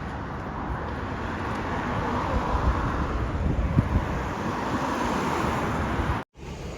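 Steady road traffic noise, a vehicle passing by, rising slightly in the middle and cutting off suddenly near the end.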